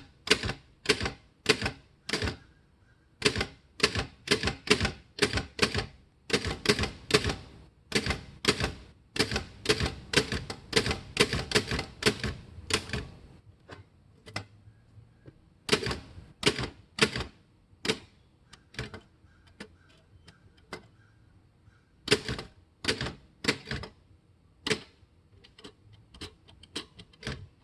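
Underwood Standard manual typewriter being typed on: a fast run of sharp key and typebar strikes, about three a second, that thins after about thirteen seconds to scattered keystrokes with pauses.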